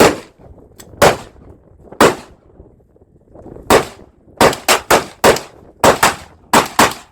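A .22 LR GSG Firefly pistol firing about a dozen shots. The first three come about a second apart, then after a short pause comes a quicker string of shots.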